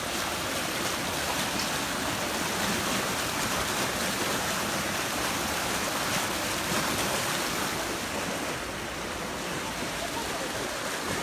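Muddy floodwater flowing fast and churning over a flooded street: a steady rushing noise of water, a little quieter near the end.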